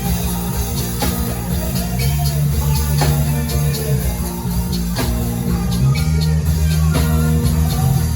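Live worship band playing an instrumental passage: sustained bass notes and guitar over a drum kit striking a steady beat about once a second.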